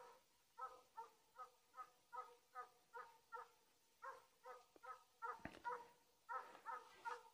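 Belarusian hound baying faintly: a steady run of short barks, about two to three a second. A single sharp knock comes a little after five seconds in.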